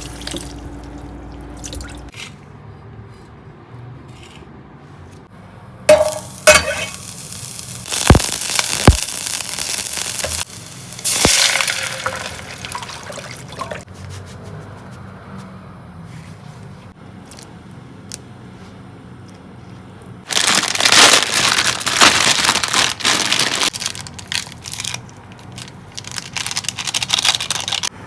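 Kitchen handling sounds in several separate bursts: dishes and glass clinking, with liquid pouring.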